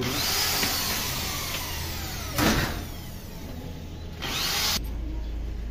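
Handheld power drill running under load, drilling overhead into a door frame, with a brief louder surge about two and a half seconds in and another near the end before it stops suddenly.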